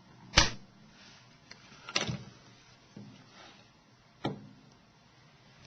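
Sharp plastic clicks, three main ones about one and a half to two seconds apart with the first the loudest, as the snap clips of a Nokia 6680's antenna cover are released with a plastic opening tool and the cover is pulled off.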